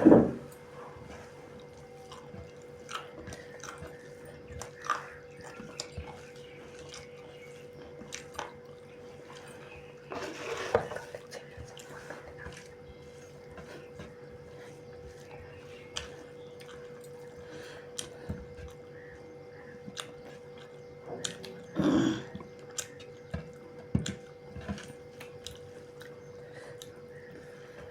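Eating sounds during a meal of pork and rice: scattered small clicks and smacks of chewing, over a steady hum. There are a few louder short sounds at the start, about ten seconds in, and about twenty-two seconds in.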